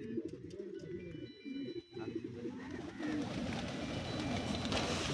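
A flock of domestic pigeons cooing, with a denser rush of many wings coming in from about three seconds in as the flock lands.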